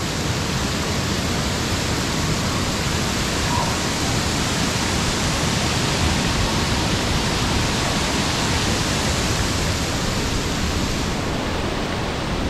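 Steady rush of running water from the aquapark's water-play structure and slides, an even hiss with no breaks or splashes.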